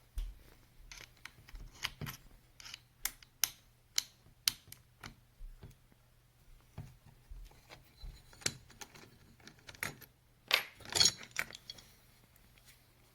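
Irregular sharp clicks, taps and light clattering of small hard parts being handled, with a denser burst of rattling about ten and a half seconds in, over a faint steady hum.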